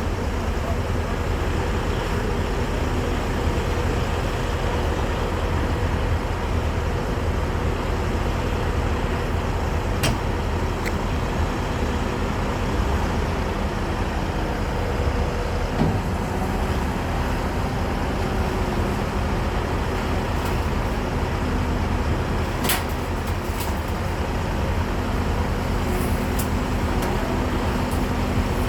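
Heavy diesel engine running steadily at a constant pace, with a couple of brief sharp clicks or knocks.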